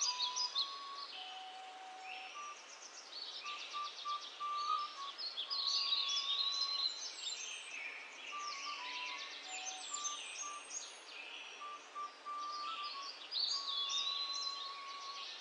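Birdsong: several small birds chirping and trilling over one another, with a simple melody of short, plain held notes underneath.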